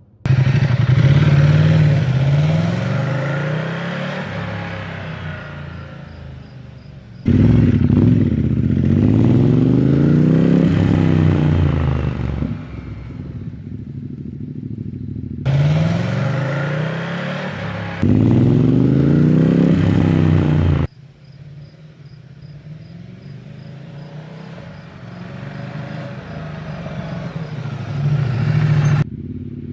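Ducati Diavel 1260 S L-twin engine through an unbaffled Termignoni exhaust, revving and pulling away in several spliced clips. The engine note rises and falls with each pull, and each clip cuts in or out abruptly.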